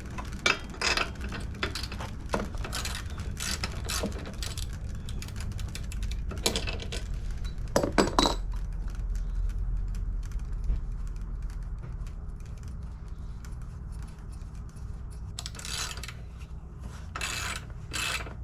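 Socket ratchet clicking and metal tool clinks while the mower's old spark plug is taken out and a new one is fitted. The clicks come in scattered bursts, busiest in the first half and again near the end, over a steady low hum.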